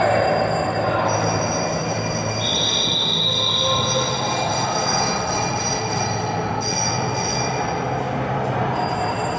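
Steady, echoing rumble of many bicycles rolling through a road tunnel, under a low hum. About two and a half seconds in, a high squeal lasts about a second and a half.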